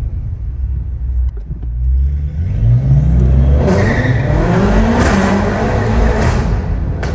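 Tuned BMW F10 M5 Competition's twin-turbo V8 accelerating hard: a low rumble, then the engine note climbing steadily in pitch for a few seconds, with a quick burst of sharp exhaust cracks near the end.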